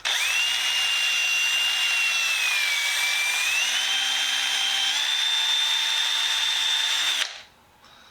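Small power tool spinning a brass wire brush against the quarter-inch ratchet's head. Its whine dips about three seconds in, steps up twice, and stops suddenly about a second before the end.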